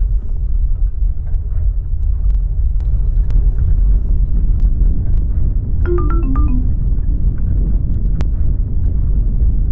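Loud, continuous deep rumble of simulated earthquake shaking. About six seconds in, a short descending run of five or six chime-like notes sounds over it.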